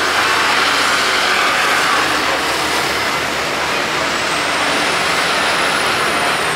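Street traffic: a motor vehicle running past close by as a loud, steady rush, with a faint high whine rising and falling over the last few seconds.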